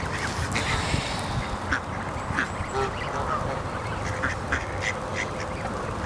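Mallard ducks quacking, short calls scattered through the whole stretch over a steady background hiss.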